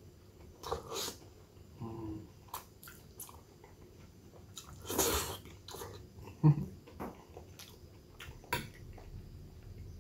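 Someone eating creamy instant noodles: scattered small clicks of a utensil against the dish, with short slurping and chewing sounds. One longer, louder slurp comes about five seconds in.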